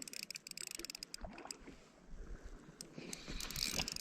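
Spinning reel ticking in rapid, even clicks while a trout is played on light tackle, the clicks coming thick for about the first second and then thinning out, with a few faint low rumbles.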